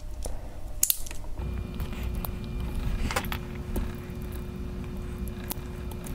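Small screwdriver prying at the plastic housing of a small 12-volt relay: scattered clicks and scrapes of metal on plastic. A steady low hum comes in about a second and a half in.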